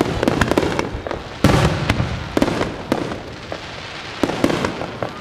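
Fireworks shells bursting in a rapid string of bangs and crackling pops, with the loudest burst about a second and a half in and further scattered bangs after it.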